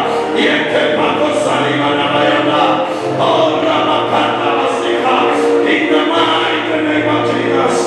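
Many voices singing together over musical backing: a church congregation or choir singing a worship song.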